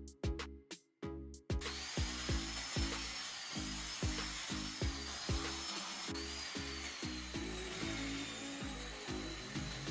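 Background music with a steady beat; about a second and a half in, a power tool starts up on wood and keeps running under the music with a high, slightly wavering whine.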